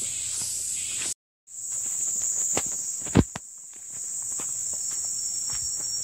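Footsteps crunching on a dirt forest trail under a steady, high-pitched chorus of insects. The sound drops out completely for a moment about a second in, and a single sharp thump stands out about three seconds in.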